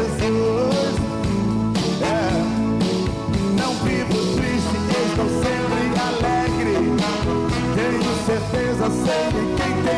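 Live band performing a song on stage, drums and instruments, with a male singer's voice sliding in pitch over them at times.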